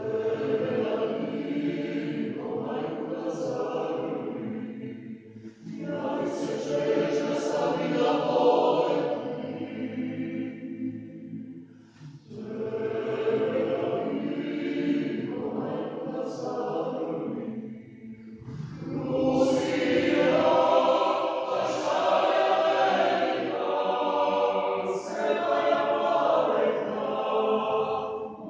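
Serbian Orthodox church choir of mixed men's and women's voices singing a cappella. The singing comes in phrases broken by brief pauses about every six seconds, and the last phrase is longer.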